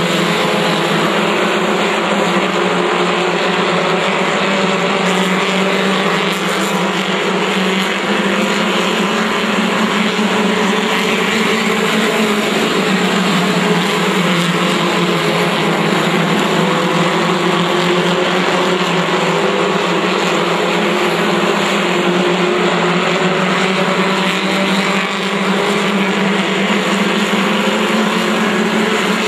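A pack of pure stock race cars running laps together, their engines a loud, steady drone that wavers slightly in pitch as the cars work around the oval.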